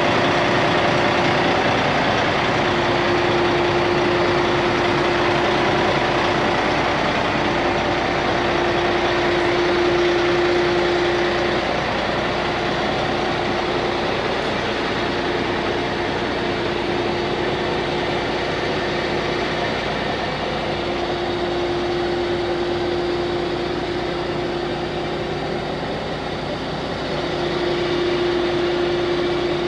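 An engine idling steadily, with a humming tone that swells and fades every few seconds.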